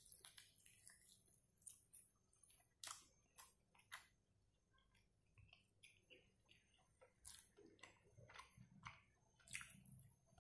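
Faint chewing and biting on a pepper-fried chicken drumstick: scattered soft, wet mouth clicks and smacks, with a quieter stretch around the middle.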